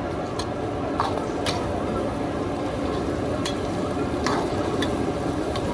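A large wok of braised flatbread being stir-fried: steady sizzling with the spatula scraping through the food, and several sharp, irregular clacks of the spatula against the wok.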